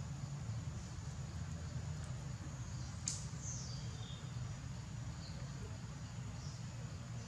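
Outdoor ambience: a steady low rumble with a few faint, high bird chirps, the sharpest a quick falling chirp about three seconds in.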